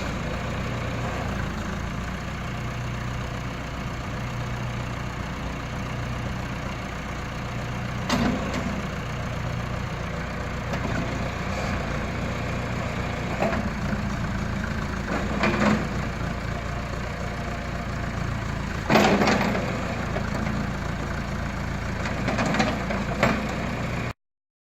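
John Deere 310A backhoe's engine idling steadily, with several short knocks over the idle, the loudest about three quarters of the way through. The sound cuts off abruptly near the end.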